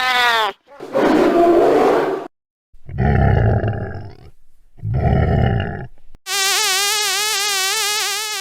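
A run of short, separate sounds: a quick pitch sweep, then rough low roars with gaps between them. About six seconds in, a continuous housefly buzzing sound effect starts, its pitch wavering slightly up and down.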